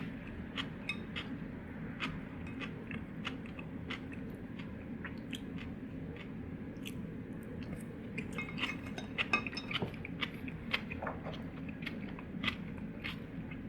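Eating sounds at a table: scattered small clicks and taps of tableware, busiest past the middle, with chewing, over a steady low hum of room ambience.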